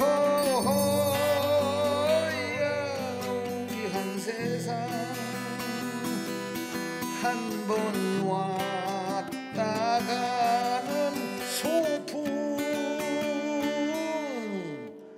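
A song performed with acoustic guitar: a voice holds long notes with a wide vibrato over strummed chords, then slides down in pitch near the end.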